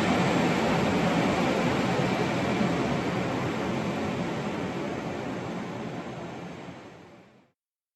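Airport tarmac ambience: the steady rushing noise of aircraft engines with a low hum beneath it, fading out over the last few seconds to silence.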